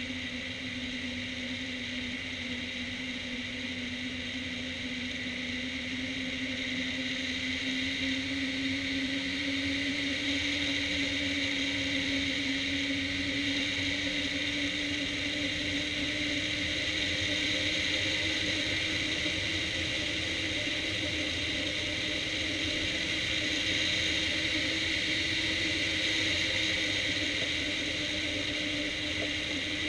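Airflow rushing past a hang glider in flight, a steady roar with a steady humming tone that slowly rises in pitch over the first half.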